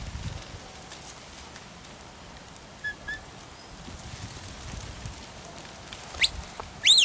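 Open-field ambience with a low wind rumble on the microphone. Near the end come two sharp whistles sweeping up in pitch; the second, louder one rises and then drops away.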